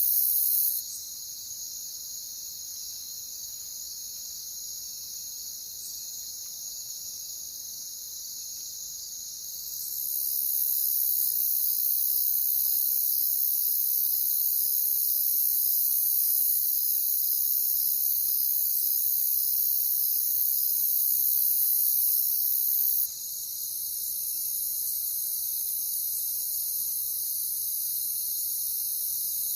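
A chorus of crickets chirping continuously in a fast, even trill. The overall loudness drops abruptly about a second in, rises again around ten seconds in and steps down near twenty-three seconds.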